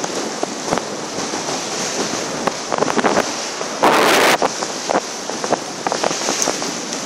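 Wind buffeting the microphone over the rush and slap of choppy water against a boat's hull, with a louder burst about four seconds in.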